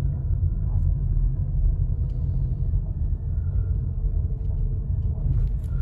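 Low rumble inside a car cabin driven slowly over a bumpy unsurfaced track: the engine turning at about 1,000 rpm and the tyres on rough ground, with a few faint clicks.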